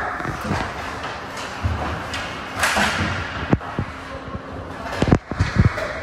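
A series of sharp thuds and knocks over steady background noise, the loudest a quick cluster of three about five seconds in.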